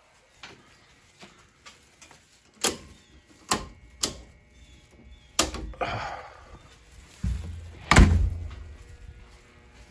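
Doors being opened and shut: a series of sharp clicks and knocks, then one loud, heavy slam about eight seconds in.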